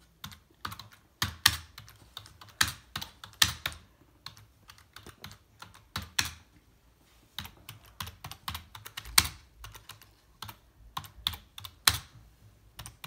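Typing on a computer keyboard: a run of irregular key clicks, with a short pause a little past halfway through.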